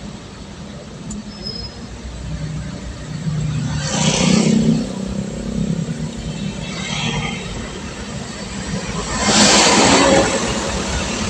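Road traffic: a vehicle engine running steadily, with louder whooshes of vehicles passing about 4, 7 and 10 seconds in.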